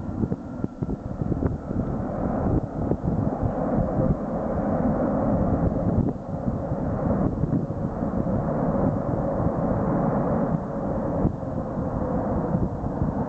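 Airliner engines running as an aircraft passes the airport, a steady rushing noise with a faint whine, and wind buffeting the microphone.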